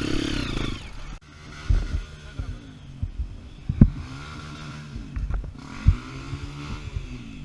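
Trail motorcycle engine revving, cutting off about a second in, then rising and falling in pitch twice, with several dull low thumps between.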